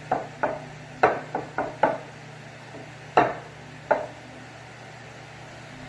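Apple slices being set down by hand in a glass baking dish, making about eight light knocks in quick clusters over the first four seconds.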